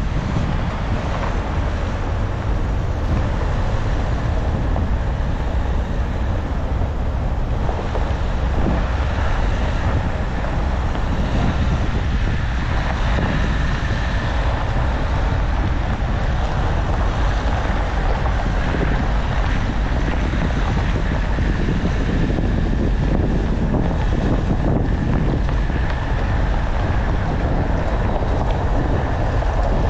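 Steady wind buffeting on the microphone over the running noise of a car being driven, with no change in level.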